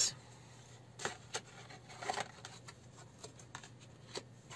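Tarot cards from a large Gaian Tarot deck being handled and shuffled, with a card laid down on the cloth: a handful of separate soft taps and slides of card against card.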